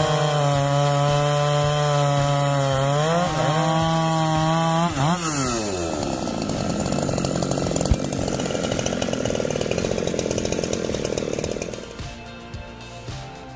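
Two-stroke chainsaw held at full throttle with a high, steady whine, its pitch dipping briefly twice. About five seconds in, the engine pulls down to a lower, rougher note as the chain cuts through wood. The sound drops away about twelve seconds in.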